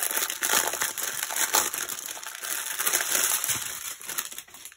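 Small clear plastic packets of diamond-painting drills crinkling and crackling as they are handled and sorted by hand, dying away near the end.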